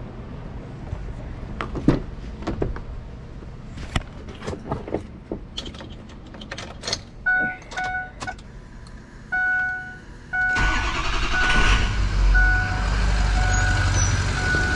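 Clicks and knocks of handling, then a repeated two-tone chime beeping from about seven seconds in. Near the ten-second mark the 2005 Ford Excursion's 6.0 L Power Stroke V8 turbo-diesel starts and settles into a steady run, with the chime still beeping.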